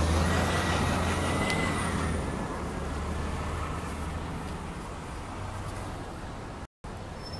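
Double-decker sightseeing bus driving past close by: a low engine rumble with a faint rising whine, fading over a few seconds into steady street traffic noise. The sound cuts out for a moment near the end.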